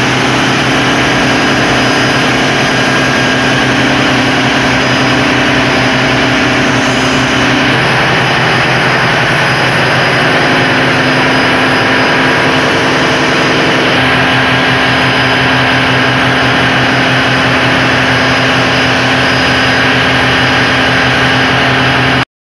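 Mitsubishi 1400 hp marine diesel engine running, loud and steady, heard up close in the ship's engine room: a continuous drone made of several steady tones, whose mix shifts slightly twice.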